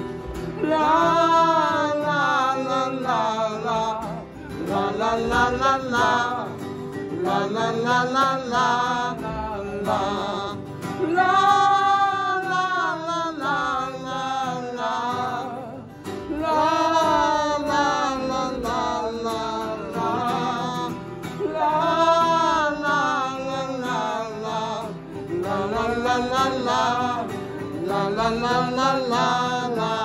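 A man singing slow phrases of long, held notes, accompanying himself on a ukulele.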